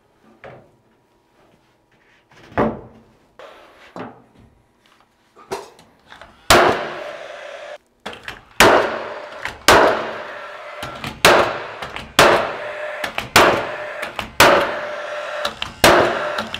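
Cordless Paslode 16-gauge angled finish nailer shooting nails into trim, about ten shots roughly one a second from about six seconds in, after a few lighter knocks as the piece is set in place. Between shots its fan whirs steadily.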